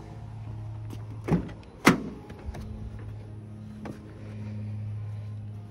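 Two sharp car-door clunks about half a second apart, over a steady low hum.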